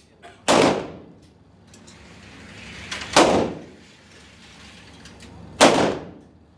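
Three gunshots about two and a half seconds apart on an indoor firing range, each echoing briefly off the range's walls and ceiling.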